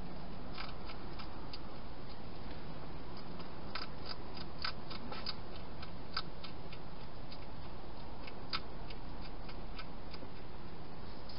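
Hedgehog eating dry food, an irregular run of sharp crunches and clicks in short clusters over a steady background hiss.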